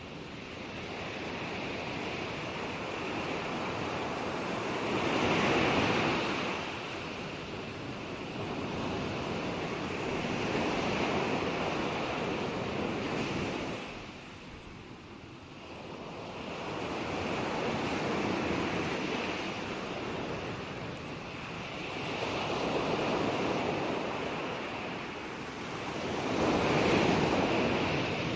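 Gentle ocean waves breaking and washing on the shore: about five slow surges, each swelling and ebbing over several seconds, with a steady surf hiss between them.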